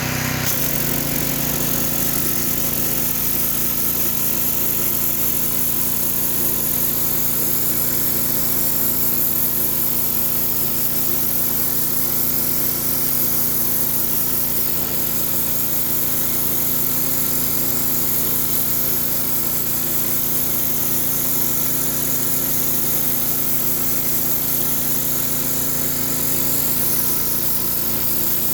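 Gas-engine 3100 psi pressure washer running steadily under load, with the hiss of high-pressure water from a whirligig rotary surface cleaner spraying onto a concrete pad.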